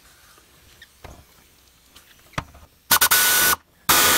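A 1/4-inch pneumatic air ratchet run in two short bursts, driving the mounting screws of a steel safe home, with a steady whine over the hiss of air. The first burst lasts under a second; the second starts right after a brief pause, near the end. Before them there are only a few faint handling clicks.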